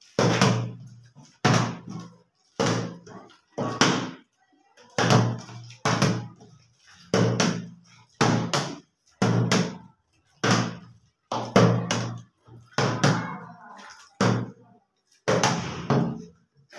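Plastic water bottles, partly filled, flipped and landing on a wooden tabletop: a string of hollow thuds, about one a second, each dying away quickly.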